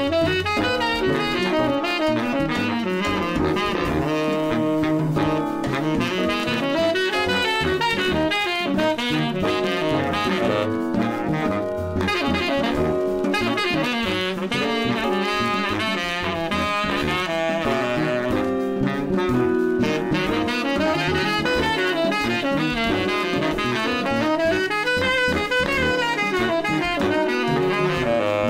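Background jazz music with a saxophone lead playing throughout.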